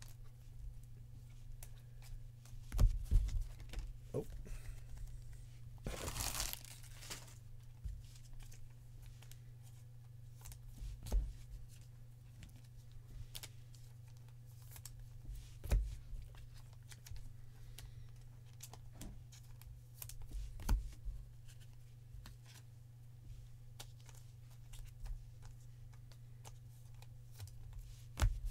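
Baseball trading cards being handled and sorted by hand: faint slides and clicks of card stock, with a few soft knocks on the table. A foil pack wrapper crinkles briefly about six seconds in, over a steady low hum.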